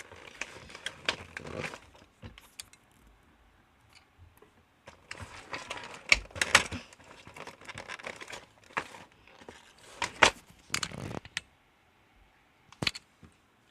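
Packaging of a boxed electronic game being opened by hand: irregular bursts of crinkling and tearing with sharp clicks, broken by short pauses.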